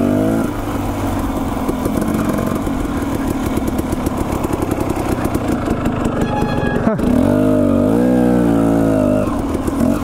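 Dirt bike engine running at low revs on the trail, pulsing unevenly. About seven seconds in there is a brief break, then the revs rise and fall.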